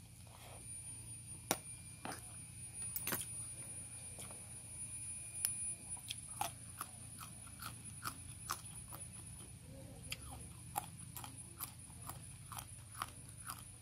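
Crunchy close-up chewing and biting of raw long beans: a run of short, irregular crisp clicks, with a couple of sharper cracks in the first few seconds.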